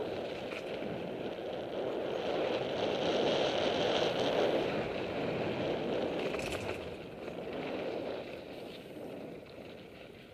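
Mountain bike riding along a dirt singletrack: wind rushing over the bike-mounted camera's microphone along with the rolling noise of the tyres on dirt, easing off in the second half. A brief click or rattle about six and a half seconds in.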